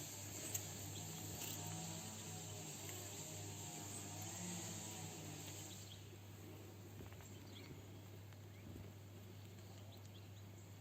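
Faint summer outdoor ambience: insects chirping steadily at a high pitch, dropping away about six seconds in, over a low steady hum.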